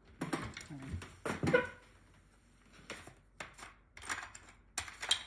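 Small tools and objects clattering and knocking on a workbench as they are moved about in a search for a comb. The knocks are short and sharp, the loudest about a second and a half in.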